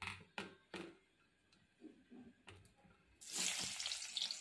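Three sharp knocks near the start, then about three seconds in a loud sizzling starts suddenly: chopped onion frying in hot oil in a kadai.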